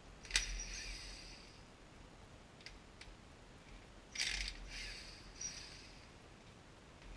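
Metal clinks of hand tools and parts being handled at a cast-iron engine block: a sharp clink about a third of a second in, two light ticks around three seconds, and a short rattle of clinks a little after four seconds, with another clink soon after.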